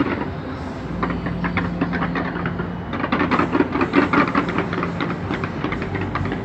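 Fireworks going off in rapid volleys of crackling pops and bangs, densest about three to five seconds in.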